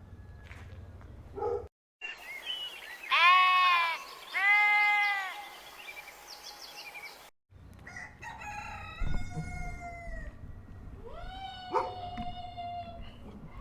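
A goat bleats twice, two loud, drawn-out calls. After a cut, several roosters crow over each other, the last crow rising and then held for over a second.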